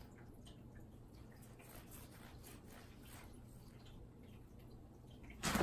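Mostly a quiet room with a few faint ticks, then near the end a sudden loud scuffle: a cat scrambling out of a cardboard box house onto a wooden floor.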